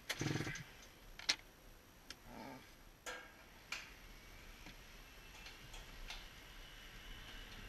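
A few sharp clicks and knocks about a second apart, with quiet between them, as the plastic hood of a Polaris IQ 600R snowmobile is unlatched and lifted. The engine is not running.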